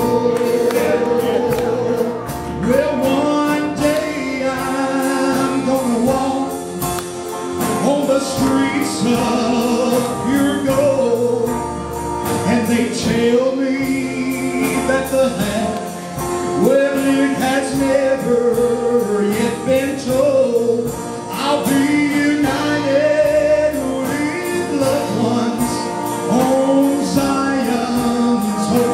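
A live gospel song: a man sings lead into a handheld microphone over an amplified band with electric guitar.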